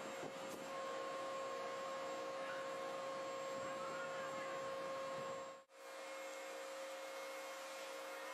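Steady hum and hiss with a few fixed tones. It drops out sharply for a moment about five and a half seconds in, then goes on.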